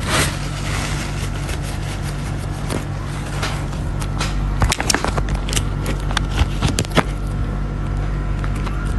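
Clicks and knocks of a phone being handled and moved, over a steady low hum.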